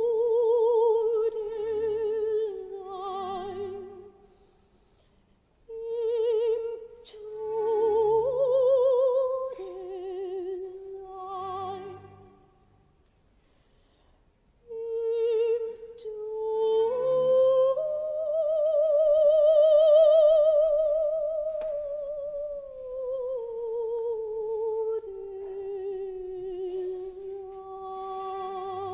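Operatic soprano singing slow, long-held notes with a wide vibrato, in three phrases broken by two short pauses. The highest and loudest note swells about two-thirds of the way through, then the line steps back down.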